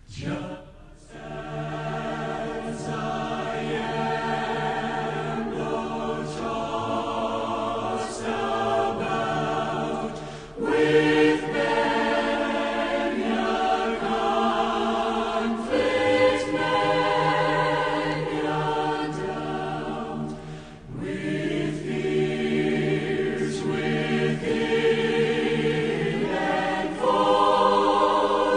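Choir singing a slow hymn, phrase after phrase, with short pauses between the lines.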